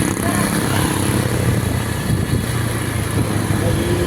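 Bus engine running with a steady low rumble.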